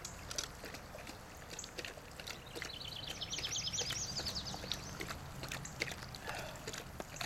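A large dog lapping water from a paw-pressed drinking fountain: a quick, irregular run of wet clicks and slurps. A high, rapid trill sounds in the background from about two and a half to four seconds in.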